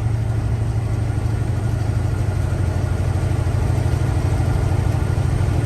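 Semi-truck's diesel engine running steadily while driving, with road noise, heard from inside the cab as an even low drone.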